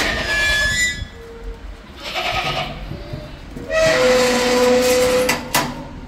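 Sojat goats bleating: three separate calls, the loudest a long bleat held on one pitch for about a second and a half midway, followed by two sharp knocks near the end.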